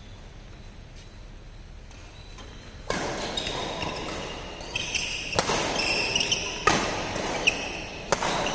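Badminton rally in a large hall: rackets striking a shuttlecock, sharp smacks with a short echo about a second apart, starting about three seconds in, with short high squeaks of shoes on the court floor between them.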